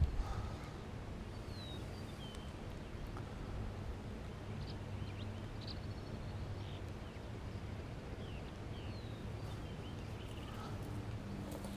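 Birds chirping now and then in short calls and little gliding notes, over a steady low background hum.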